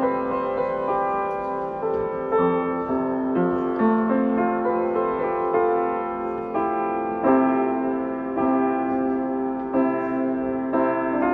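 Piano music: a steady run of notes, each starting sharply and then held.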